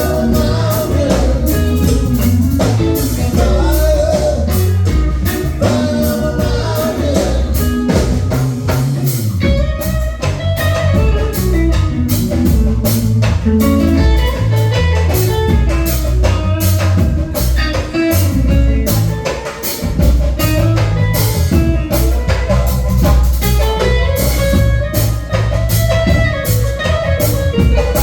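Live band playing: guitar over bass and a drum kit keeping a steady beat.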